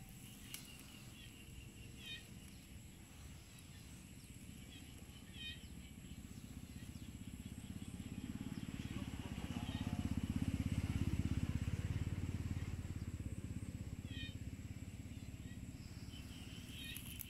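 Engine of a passing vehicle, rising over several seconds to its loudest about halfway through, then fading away. Short bird chirps come and go over it.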